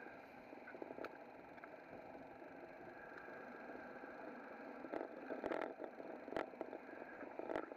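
Bicycle ride heard through a mounted camera: a steady rush of wind and tyre noise on the pavement, with a few sharp knocks and rattles in the second half as the bike jolts over the road surface.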